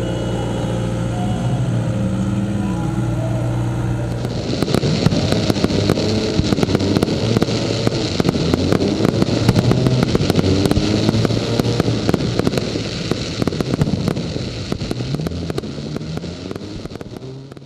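A vehicle engine running for the first few seconds, then from about four seconds in a fireworks display: rapid crackles and sharp bangs that fade out at the end.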